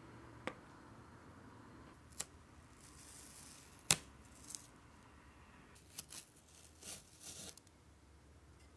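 Masking tape being peeled off a thin aluminium strip and balsa-wood form, in short hissy rips, with a few sharp clicks between them, the loudest a little under four seconds in.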